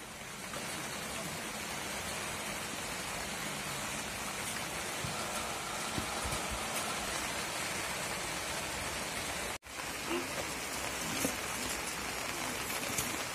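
Steady hiss of rain falling, with a momentary break in the sound about ten seconds in.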